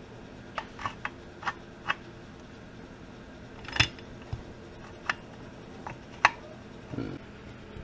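Sharp metallic clicks and clinks, about ten at irregular intervals, as the shift drum of a 2005 Suzuki RM-Z250 transmission is turned by hand, moving the shift forks and sliding the steel gears into different gear positions. The loudest clicks come just before the middle and about six seconds in.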